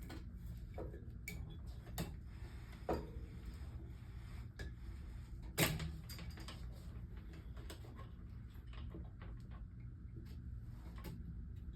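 Irregular small clicks and knocks from hands working the pottery wheel's new rubber drive belts onto their pulleys, with one louder knock about halfway through, over a low steady hum.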